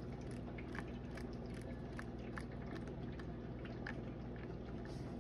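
Faint handling noise, many small scattered clicks and rustles, over a steady low hum.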